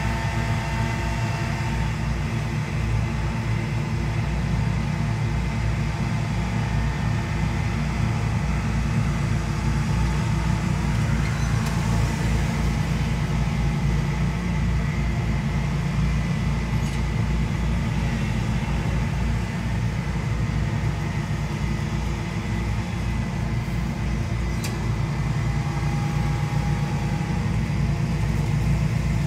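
Gas-powered leaf blowers, a stand-on wheeled blower and backpack blowers, running steadily: a continuous engine drone under the rush of blown air.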